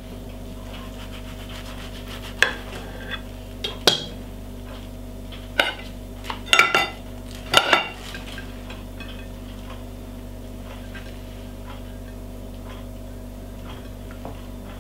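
A chef's knife cutting through sandwiches on a ceramic plate, the blade clinking against the plate in a run of sharp clicks, then soft handling as the halves are moved, over a steady low hum.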